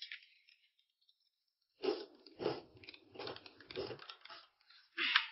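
A person chewing food with the mouth close to the microphone: four loud, crunchy chews about two-thirds of a second apart, then a short sharp mouth sound near the end.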